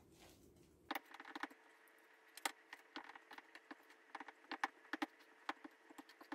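Wooden spoon stirring flour and cornmeal into wet cookie dough in a bowl: faint, irregular taps and scrapes of the spoon against the bowl.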